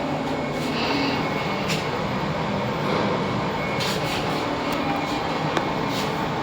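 Passenger lift car travelling down its shaft: a steady noisy hum of the moving car, with a few faint clicks.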